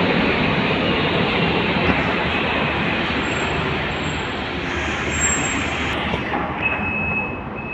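Articulated city bus moving past at close range, its engine and tyre noise a steady rush that slowly fades. Near the end a high-pitched electronic warning beep starts, sounding in long pulses.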